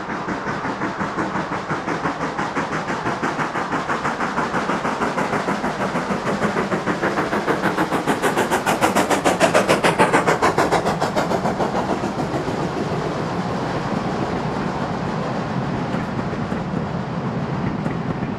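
Steam locomotive working hard as it passes, with rapid, even exhaust beats. The beats grow louder toward the middle and fade away after.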